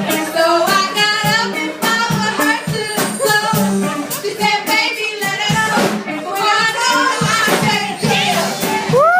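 Music with a singing voice over a steady percussive beat.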